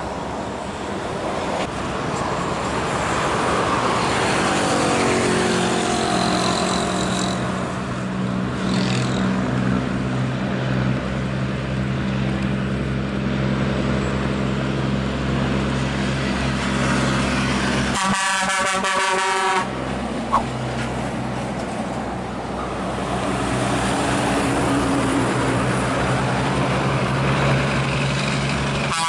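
Scania semi-truck diesel engines running under load as the trucks pass, with a deep steady drone and a rise in engine pitch about four to eight seconds in as one accelerates. About 18 seconds in, a truck air horn sounds for about a second and a half.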